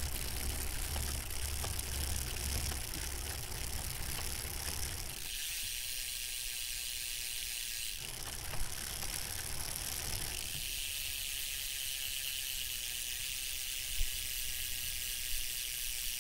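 Bicycles riding past: a steady whirring hiss of wheels and drivetrains, with a low rumble for the first five seconds. The sound changes abruptly about five, eight and ten seconds in.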